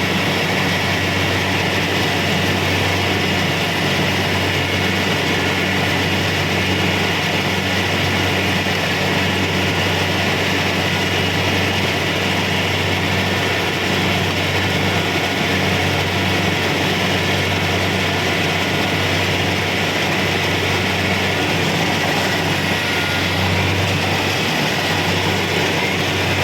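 Kubota DC-70 Pro combine harvester running steadily at work: a constant low engine hum under an even mechanical whir.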